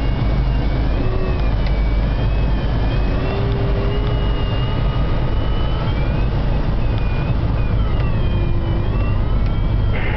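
Pipistrel Sinus motor glider's engine and propeller, heard from inside the cockpit as a steady drone in flight.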